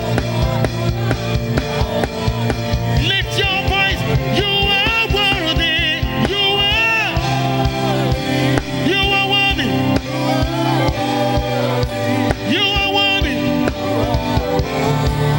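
Live gospel praise music: a singer's phrases with wavering, vibrato-laden pitch over a drum kit and a band holding sustained low notes.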